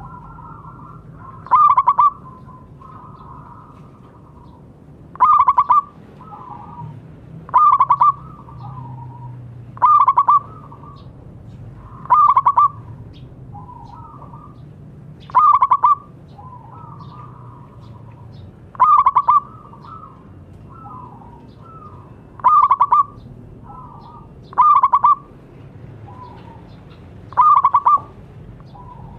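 Zebra dove (perkutut) cooing: a loud, short phrase of rapid cooing notes repeated about every two to three seconds, with softer coos in between.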